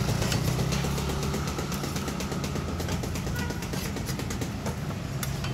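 A steady low engine-like hum from the street, with many light clicks and scrapes of a metal spatula and metal lids on the pancake pans.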